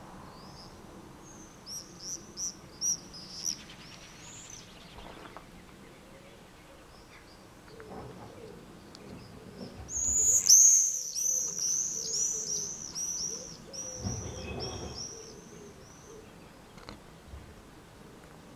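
Swifts screeching in flight in two bouts of rapid, shrill calls. A short series comes in the first few seconds, then a louder, longer run of screeches starts about ten seconds in and lasts several seconds.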